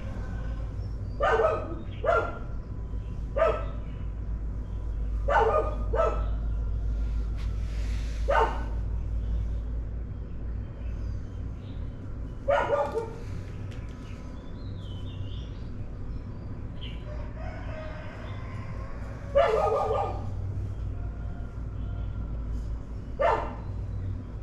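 Dogs barking in short single and double barks at irregular intervals, about nine in all, over a steady low hum.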